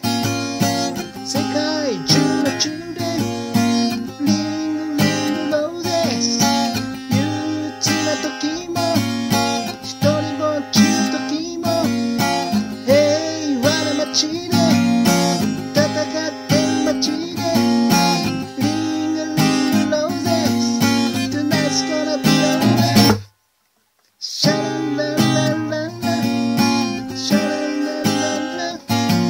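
Steel-string acoustic guitar strummed steadily through the chords of a slow song. The sound cuts out completely for about a second near the end, then the strumming resumes.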